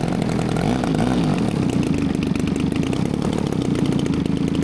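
Desert Aircraft DA-120 twin-cylinder two-stroke gas engine of a large RC aerobatic plane running steadily, its pitch rising and falling slightly about a second in.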